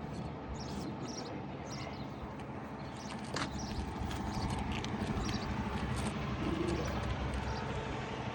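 Crane truck's engine running steadily during a lift, with short, irregular high ticks or chirps over the low drone.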